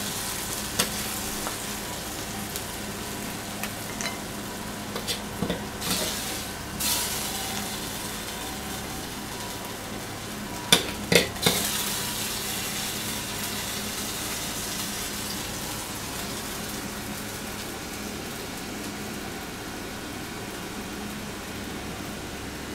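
Steady sizzling hiss of food frying in a wok, with a few sharp clinks of a metal ladle against the wok and plate, the loudest two or three about eleven seconds in.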